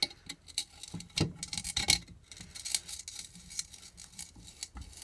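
A tool poking and scraping through grip tape over the brake mounting holes of a scooter deck: irregular scratchy clicks and rubs.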